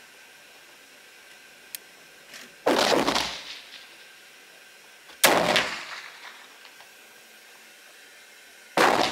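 Three gunshots, about two and a half to three and a half seconds apart, each sharp crack trailing off in echo from the enclosed range. A single-shot rifle cannot fire that fast, so at least some of the shots come from neighbouring lanes.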